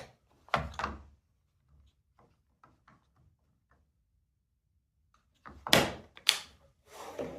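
Several separate knocks and clunks of hard objects being handled and set down: a sharp knock at the start, another just after, faint small ticks, then two loud clunks about six seconds in and one more near the end. No steady drill running.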